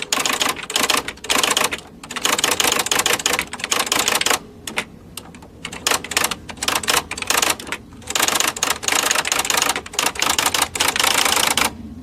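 Typewriter keys being struck in fast runs of clicks, broken by a couple of short pauses, stopping shortly before the end.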